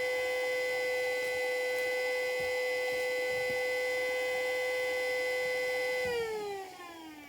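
Federal Signal Model 2A siren sounding a steady tone on its alert signal, then winding down with a falling pitch and fading from about six seconds in.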